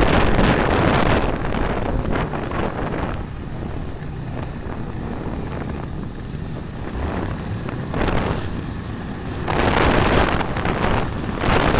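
Snowmobile running along a trail, its engine drone mixed with wind rushing over the microphone. The wind noise is heavier for the first few seconds and again near the end.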